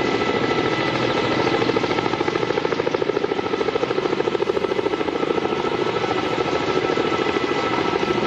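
Helicopter hovering close by: rapid, steady rotor-blade thumping with a high, steady turbine whine.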